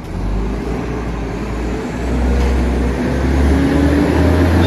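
Heavy vehicle's engine rumbling low and growing louder as it draws near.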